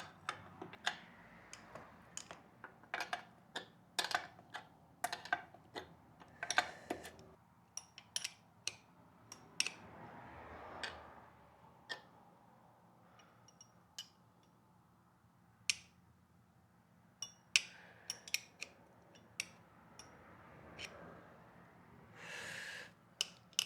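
Irregular sharp metallic clicks and clinks of hand tools and metal parts being handled while working on a motorcycle's chain and rear wheel. Some strikes come in quick clusters and others a second or more apart.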